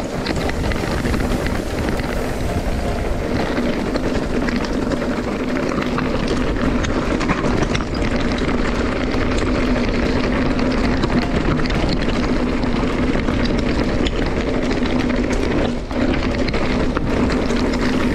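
Steady riding noise of a mountain bike on a trail, with wind on the microphone.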